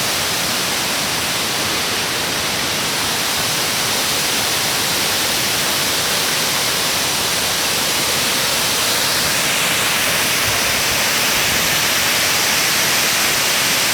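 Oshinkoshin Falls, a waterfall, rushing as a loud, steady hiss of falling water.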